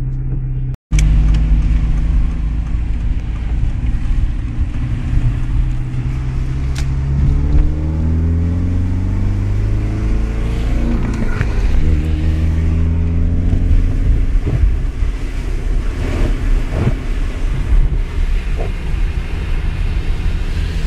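Ford Sierra's engine and exhaust heard from inside the cabin, running steadily, its pitch rising for several seconds through the middle as the engine speed climbs, then settling back to a steady low drone.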